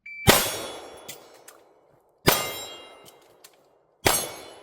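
A shot timer's brief start beep, then three pistol shots about two seconds apart, each ringing a steel target. The last shot comes about four seconds after the beep, matching a timed run with a reload on the move between targets.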